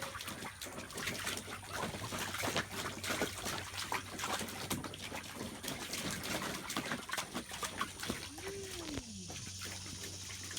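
German Shepherd puppy splashing and paddling in shallow water, with many irregular splashes and drips. About eight seconds in comes one short vocal sound that rises and then falls in pitch.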